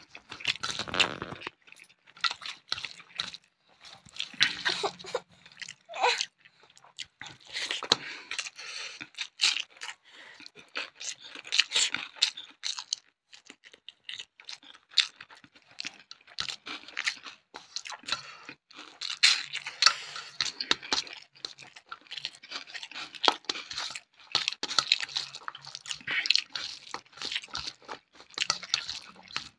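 Close-miked eating sounds: a person chewing mouthfuls of rice with fried egg fritters and crisp fried bari, crunching and smacking in irregular bursts. Fingers mix the rice on the steel plate between bites.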